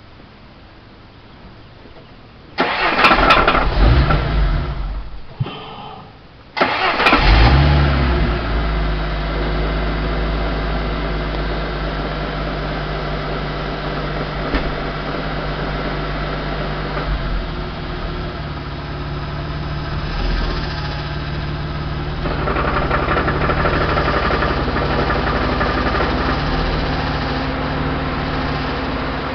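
Ford Thunderbird engine started: it fires briefly about three seconds in and dies, then restarts about six and a half seconds in and settles into a steady idle. The uploader posts it for an engine knock.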